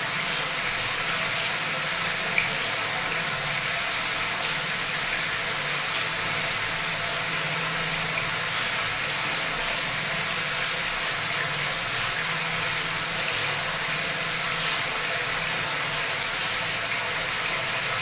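Bathroom wall tap running at full flow, its jet plunging into a tiled water tank filled to the brim and churning the surface: a steady rushing, splashing hiss of pouring water.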